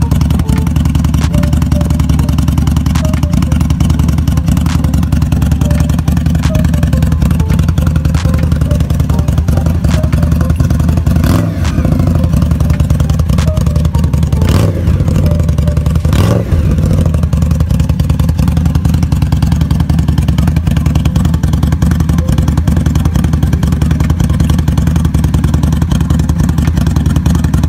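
Indian Scout Bobber's liquid-cooled V-twin engine idling steadily through its twin exhaust silencers, the note briefly wavering twice around the middle.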